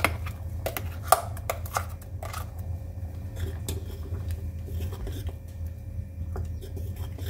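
Metal spoon clinking and scraping against the container and the aluminium pressure-cooker pan as ground coconut paste is scraped into a curry and stirred in. The sharpest clicks come in the first couple of seconds, with the loudest a little after one second in, and softer scraping follows over a steady low hum.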